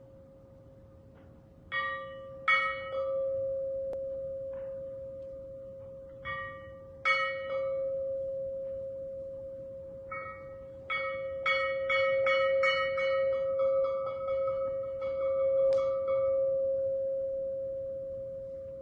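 Live ambient music on ringing metal: one steady, singing-bowl-like tone held throughout, with struck bell-like notes ringing out and fading over it, a few single strikes and then a quick run of several about halfway through.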